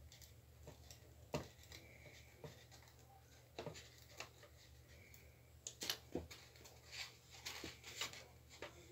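Faint scattered clicks and rustles of wires and plastic connectors being handled and pulled inside an opened Nespresso Zenius coffee machine, busier in the second half, over a steady low hum.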